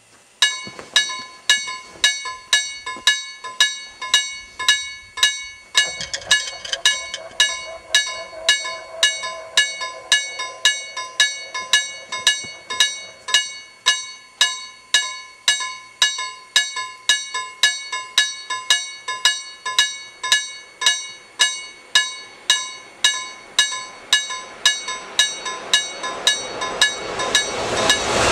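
Level crossing warning bell ringing in single metallic strikes, about two a second, each ringing out before the next: the signal that a train is approaching. Near the end the approaching train's noise swells up under the bell.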